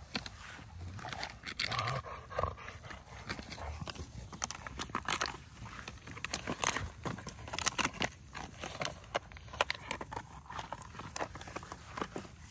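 XL American bully dogs play-wrestling on grass: a run of quick scuffles, knocks and clicks from paws and jaws, with a brief dog vocal sound about two seconds in.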